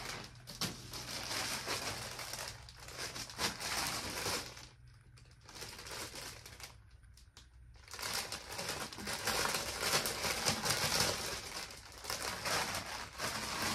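Clear plastic packaging bag crinkling as it is handled and pulled open, in two long spells with a quieter gap in the middle.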